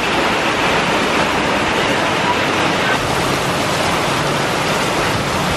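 Heavy tropical rain pouring down onto a paved street and parked cars, a loud, steady hiss with no let-up.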